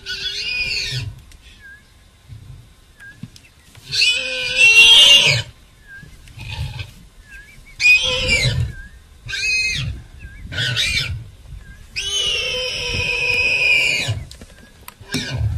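Warthog squealing in distress while held by a lion: six loud, high-pitched squeals, the longest about two seconds near the end.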